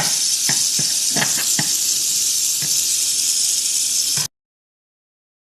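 Rattlesnake rattling in a steady, continuous high buzz, with a few light clicks over it. It cuts off abruptly about four seconds in.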